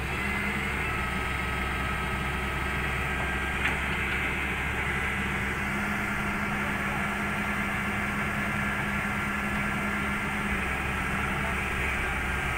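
Hyundai R210W-9S wheeled excavator's diesel engine working under load, with a steady whine, as it levers itself with its bucket up onto a lowboy trailer. A single short click comes about three and a half seconds in, and a low tone drops out near the end.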